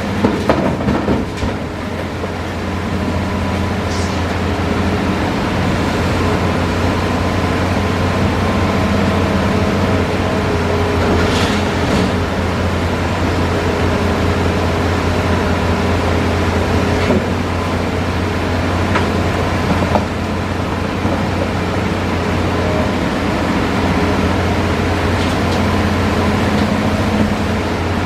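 Hitachi Zaxis 5G hydraulic excavator's diesel engine running steadily under work, with a cluster of sharp clatters in the first second or so and a few scattered knocks afterwards.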